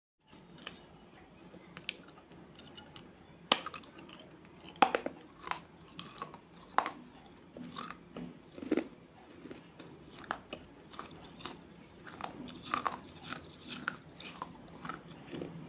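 Close-miked biting and chewing of hard, crunchy baked clay: sharp crunches every second or two, the loudest about three and a half and five seconds in, with quieter grinding chews between them.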